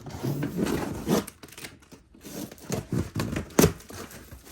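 Packaging being handled and torn open: about a second of rustling and tearing, then scattered sharp clicks and knocks as parts are moved about.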